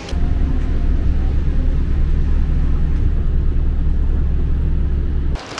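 Yui Rail monorail train running, a steady deep rumble that cuts in just after the start and cuts off abruptly near the end.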